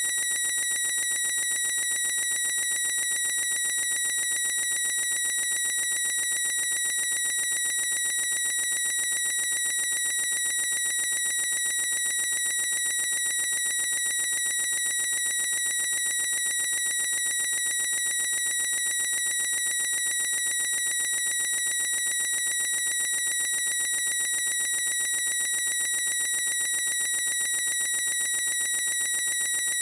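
A boy's high-pitched squeal, stretched into a single unbroken tone that holds one steady pitch with overtones and never changes in pitch or loudness.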